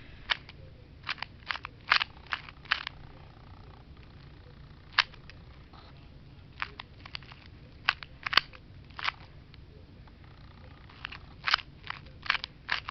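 Plastic 2x2 Rubik's cube being turned by hand: sharp, irregular clicks of its layers snapping round, coming in quick clusters with short pauses between them, as the white side is solved.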